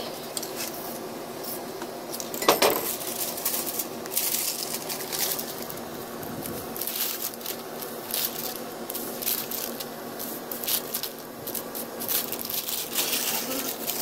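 Irregular rustles, clicks and clinks of spray-paint work: crumpled paper dabbed onto the wet paint and metal spray cans handled, with a louder clatter about two and a half seconds in.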